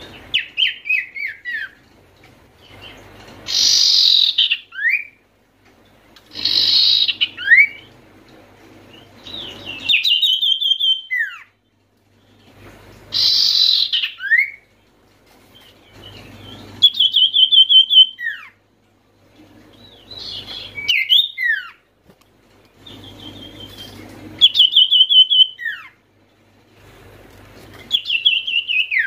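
Common iora (sirtu, cipoh) singing loudly in repeated phrases about every three seconds. Each phrase is a fast run of chirping, partly buzzy notes ending in one or two sharp downward-sliding whistles. A faint low hum lies under each phrase.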